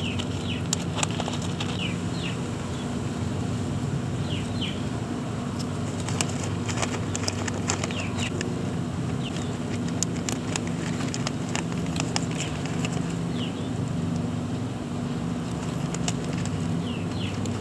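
Scattered clicks and rustles of hands planting snow peas in garden soil, over a steady low hum, with short falling bird chirps now and then.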